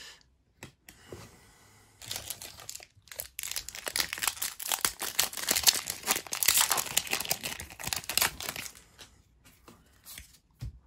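Foil wrapper of a Pokémon trading-card booster pack crinkling and being torn open by hand. It is a dense crackle that starts about two seconds in and dies away a second or two before the end.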